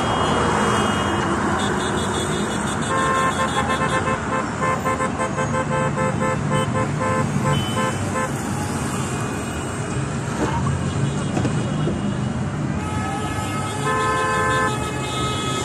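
Car horns honking in city traffic over a steady road noise: repeated blasts from about three seconds in, and again near the end.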